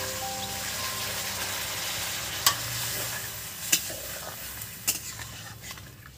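Water poured into a hot kadai of frying masala, hissing and sizzling, the sizzle slowly fading as the water cools the pan. A metal spatula stirs the gravy, knocking against the pan three times.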